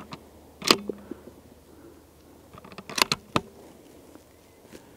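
Shots from a .22 LR bolt-action rifle, heard at the target end: a sharp crack with a short ringing about two-thirds of a second in, then two cracks close together about three seconds in and a faint one near the end.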